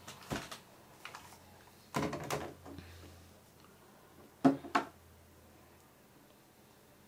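Plastic Power Rangers Dino Charge toys being handled on a tabletop: a few light clicks and taps, a short clatter about two seconds in, then two sharp plastic clicks close together about four and a half seconds in, the loudest sounds.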